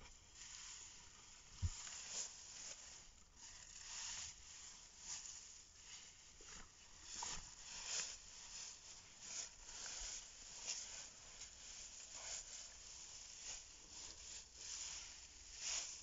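Dry plant bedding crackling and rustling under a person crawling over it on hands and knees, in irregular crunches and scrapes, with one dull thump about a second and a half in.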